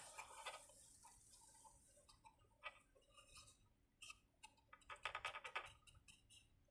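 Near silence: room tone with a few faint, scattered clicks and a brief flurry of faint ticks about five seconds in.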